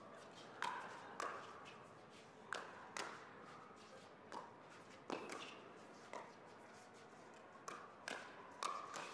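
A pickleball rally: about ten sharp pops at uneven intervals from paddles striking the hollow plastic ball and the ball bouncing on the court, some in quick pairs during volley exchanges.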